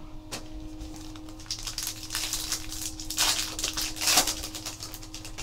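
Crinkling and tearing of a foil trading-card pack wrapper being ripped open by hand, an irregular crackle lasting about three seconds from a second or so in.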